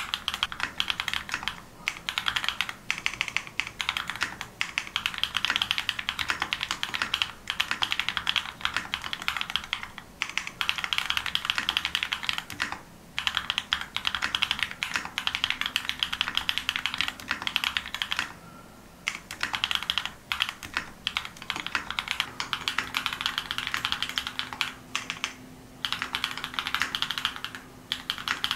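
GEON F1-8K mechanical keyboard with a polycarbonate bottom case and 'Samsin jjajang' black linear switches being typed on fast, keys bottoming out with a high-pitched clack. Runs of rapid keystrokes are broken by a few brief pauses.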